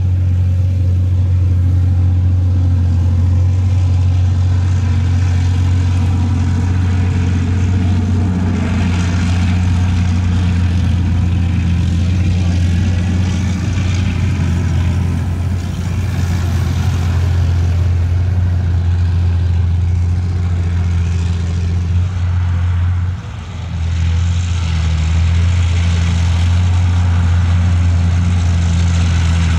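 BMP-1 infantry fighting vehicle's UTD-20 V6 diesel engine running steadily with a deep, even note while the vehicle is under way on its tracks. About three quarters of the way through, the sound dips briefly and the engine note shifts, then carries on.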